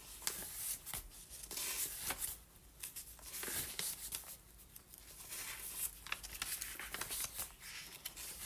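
Paper rustling and crinkling in irregular bursts with small clicks, as junk journal pages and tucked-in papers are handled and turned.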